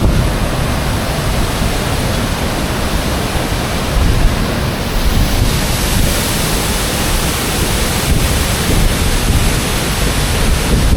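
Steady roar of a large waterfall, the even rush of falling water.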